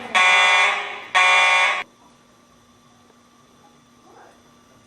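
Simplex 4903-9219 fire alarm horns sounding the code 3 temporal pattern: the tail of one blast, then two more blasts about a second apart, after which the horns fall silent about two seconds in. A faint low steady hum remains.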